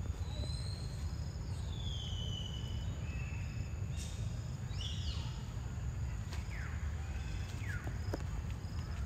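High thin whistled animal calls, several long notes gliding down in pitch in the first half and two shorter falling calls later, over a steady low rumble of outdoor noise.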